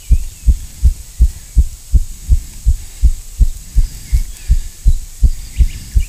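A person's heartbeat picked up through a chest-mounted GoPro: fast, steady low thumps, about three a second, racing from the effort of climbing a steep forest slope.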